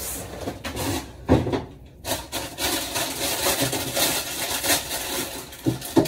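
Close-miked eating: crackly chewing and crunching of food, with a dull thump about a second and a half in.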